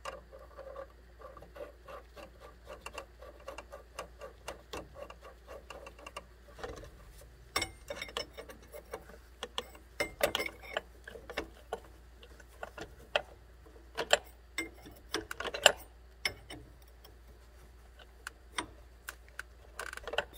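Wrench turning the screw of a double flaring tool to form the second stage of a double flare in nickel-copper brake line: small metal clicks, about three or four a second at first, then sparser and louder clicks and knocks.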